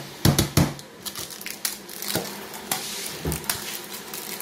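A Dairy Milk chocolate bar being snapped into pieces inside its wrapper: a few sharp snaps and knocks in the first second, then scattered crackling and crinkling of the wrapper.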